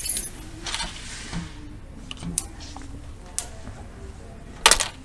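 Loose metal fasteners (nuts and bolts) clinking and rattling in store bins as they are picked through by hand: a few light clicks, then a louder short clatter near the end.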